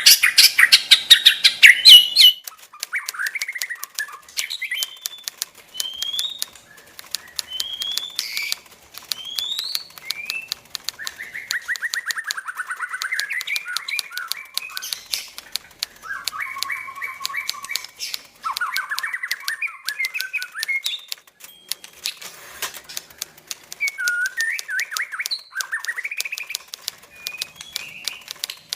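White-rumped shama (murai batu) singing: a loud burst of varied song in the first two seconds, then quieter whistled phrases, rising notes and trills, with many sharp clicks throughout.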